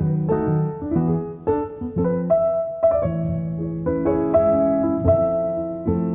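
Background piano music: a melody of struck notes over held chords.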